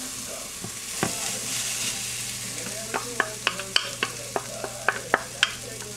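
Grated jicama sizzling in a hot frying pan with garlic and dried shrimp, a steady hiss, joined from about halfway by a run of light clicks and knocks from the bowl and wooden spatula against the pan.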